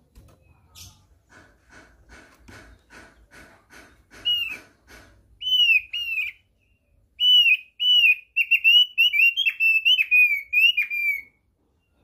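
Opior songbird singing: a run of soft quick chips, about three a second, then loud, clear, down-slurred whistles repeated in quick succession, loudest in the second half.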